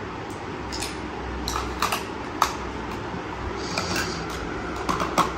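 A few light clicks and taps of makeup items being handled and set down on a table, a compact and brushes among them, over a steady low background hum.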